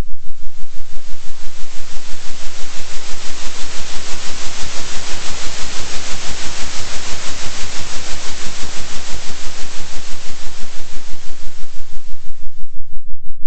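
Generated pulsing-sound track: a steady low hum under a hiss of noise, the whole beating evenly about three times a second. The hiss swells in the middle and thins out near the end.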